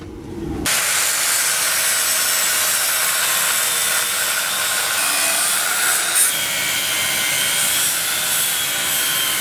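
Angle grinder cutting through a steel halfshaft held in a vise, a steady hissing whine of the disc in the metal that starts less than a second in.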